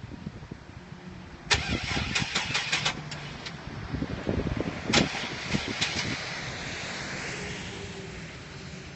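A GMC Safari van's engine is cranked by the starter in two bursts, about 1.5 s and 5 s in, with clicking and knocking, and it does not catch. The owner suspects the battery or the starter.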